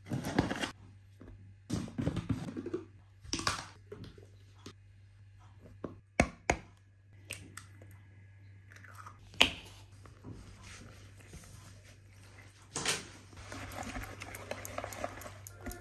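Ingredients going into a plastic mixing bowl: scattered knocks and taps of jars and utensils, liquid poured over flour, protein powder and egg, then from about 13 seconds in a wire whisk beating the batter with quick rhythmic strokes against the bowl. A low steady hum lies underneath.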